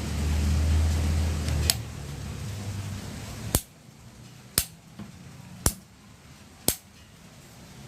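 A PCP air rifle fires four shots about a second apart, each a sharp crack. A single sharper click comes earlier, under a low rumble that dies away before the first shot.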